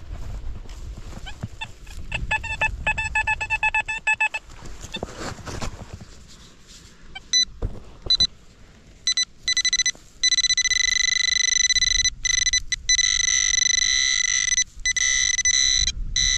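Electronic beeping from a metal-detecting pinpointer probing dug soil for a target. First comes a quick run of pulsed beeps. From about halfway, a higher steady tone sounds in long stretches with brief breaks, signalling metal right at the probe. In between there are low scuffing sounds and a few sharp knocks from handling the soil.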